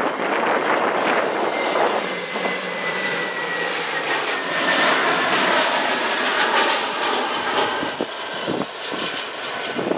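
Frontier Airlines Airbus A320-family jet on final approach with its gear down, its twin engines giving a steady roar with a thin whine that slowly falls in pitch as it passes.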